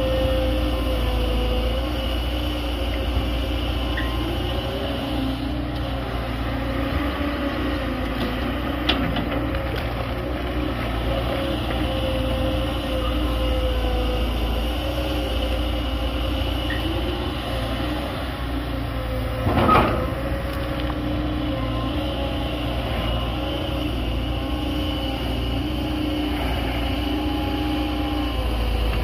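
CAT 320D hydraulic excavator working: the diesel engine runs steadily under load while a hydraulic whine wavers in pitch. About two-thirds of the way through comes a single sharp clank.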